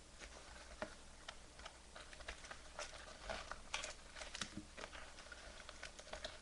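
Faint, irregular clicks and light rustling of objects being handled by hand, a dozen or so small ticks spread over a few seconds.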